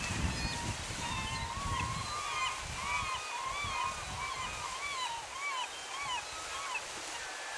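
A gull calling a quick run of about a dozen short yelping calls, each rising and falling, about two a second, over the steady rush of a creek waterfall.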